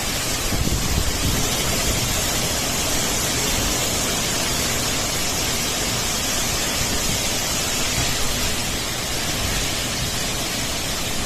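Heavy cyclone rain and strong wind: a steady rushing noise of downpour, with gusts of wind rumbling unevenly on the microphone.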